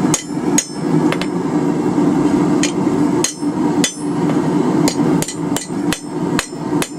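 Blacksmith's hammer striking a hot steel bar on the anvil, about a dozen irregular ringing blows, to straighten kinks and bends out of the bar. A steady low rushing noise runs underneath.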